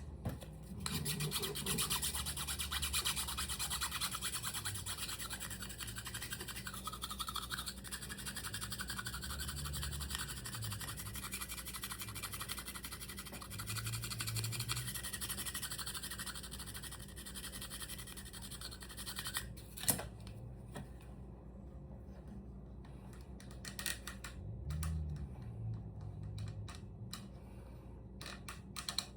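Continuous hand rubbing and scraping strokes on the wooden body of a biwa as it is smoothed during restoration. The strokes stop with a sharp click about twenty seconds in, and a few sparser scratches follow.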